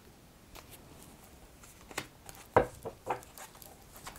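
Tarot cards being handled: a few light clicks and card slides, with one sharper tap a little past halfway.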